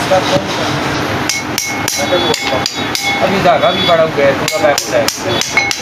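Hammer striking a spanner on the flywheel nut of an R180 diesel engine, knocking the nut tight: a run of sharp metallic blows, about three or four a second, starting about a second in.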